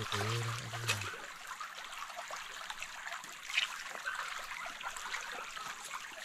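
Shallow forest stream trickling steadily over rocks. A short low hum of a man's voice sounds in the first second.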